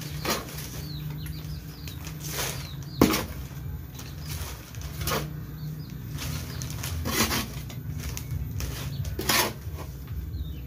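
Planting-medium mix of manure and rice-husk charcoal being scooped and dropped into polybags: a short rustling scrape about every two seconds, one of them a sharper knock about three seconds in.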